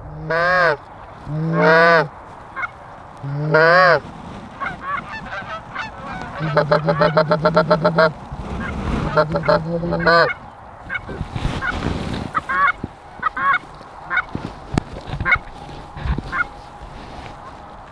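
Canada goose honks and clucks, the loud close ones typical of a hunter's goose call: three long honks, a fast run of clucks at about six a second, then two more honks, followed by fainter, shorter honks.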